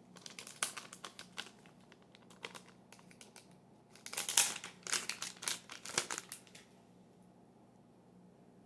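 Plastic packaging crinkling and rustling in irregular bursts as bike chain fidget toys are unwrapped, loudest a little past the middle, then stopping about seven seconds in.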